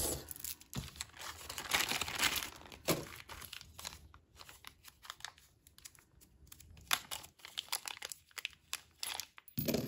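Small clear plastic zip-top bag crinkling as a beaded bracelet and earrings are slipped back inside, followed by a long run of small clicks and crackles as the bag's top is pinched along and sealed.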